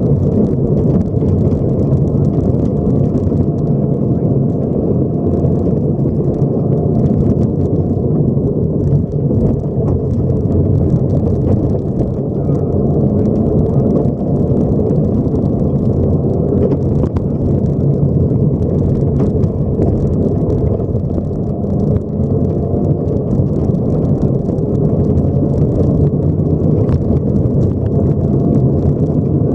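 Subaru rally car driving a gravel stage, heard from inside the cabin: steady engine and road noise, with small stones ticking against the car now and then.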